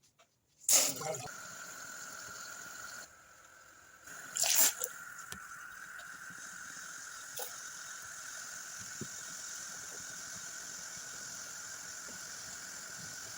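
Water running steadily into a pan, with a knock as it begins, a break about three seconds in, and another knock before the flow resumes.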